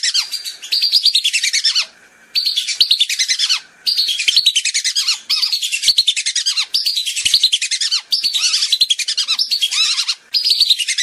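Whistling duck (belibis) lure call: rapid, high twittering whistles repeated in phrases of about a second and a half, with brief breaks between phrases.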